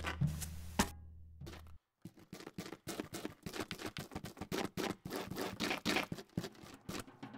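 Percussive film score. A low steady hum with a few knocks runs for the first second and a half. After a brief drop-out, a fast, irregular run of dry taps and clicks fills the rest, leading into a drum roll.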